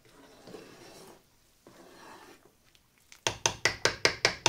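A metal kitchen utensil knocking against a pot of hot pickling brine in a quick run of about eight clinks near the end, at roughly seven a second. Faint scraping and stirring come before it.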